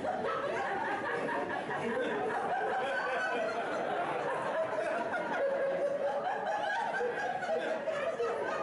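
Several people talking over one another and laughing, a continuous murmur of chatter with chuckles mixed in.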